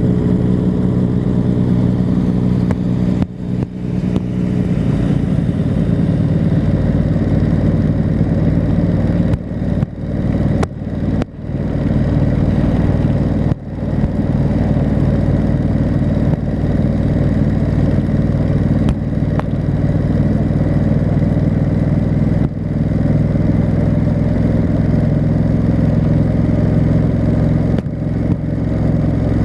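Motorcycle parallel-twin engine, a 2019 Triumph Street Scrambler on its stock exhaust, chugging along under way. The engine note briefly drops away a handful of times as the throttle is eased and picked up again.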